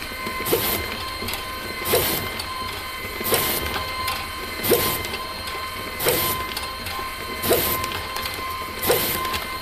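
ADR LAB510 automatic bag labelling machine running: a steady motor hum with a thin constant whine, and a sharp clack about every second and a half, one for each coffee bag fed and labelled on the belt conveyor.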